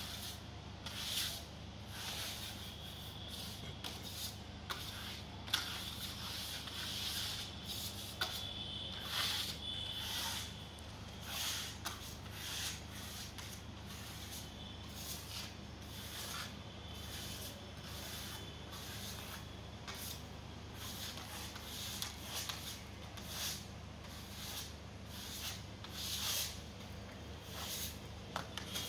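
Hand trowels scraping and rubbing wet screeding compound across a rendered wall, in irregular strokes about once or twice a second.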